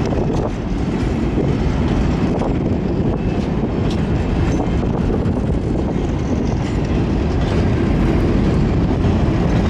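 Freight train of empty cement wagons rolling steadily past: a continuous rumble of steel wheels on the rails, with occasional sharp clicks as wheels cross rail joints.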